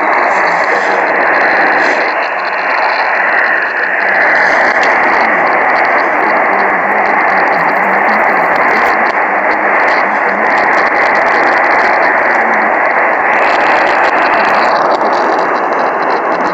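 AM radio receiver hiss and static from a weak, noisy station signal: a steady rush of noise with no clear tone or voice, brightening for a moment a little past the middle.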